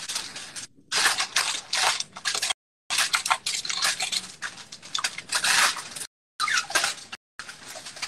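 Aluminum foil crinkling and rustling in irregular bursts as it is pulled and pressed over a baking dish. The sound cuts out completely several times for a moment.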